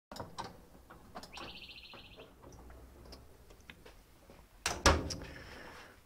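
The plastic lid and top of a Fisher & Paykel top-loading washing machine being handled: light clicks and knocks, a brief high-pitched tone of under a second about a second and a half in, then two sharp thumps close together near the end as the lid is shut.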